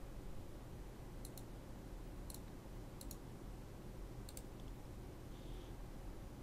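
Computer mouse button clicks, each a quick double tick of press and release, four of them about a second apart over a faint steady low hum.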